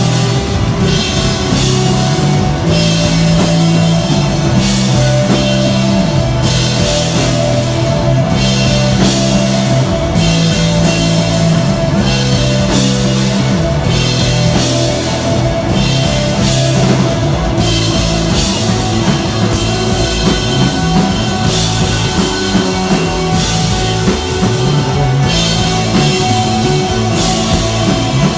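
Rock band playing live: a drum kit with steady cymbals, guitar, and a bass line holding long low notes that change every second or two.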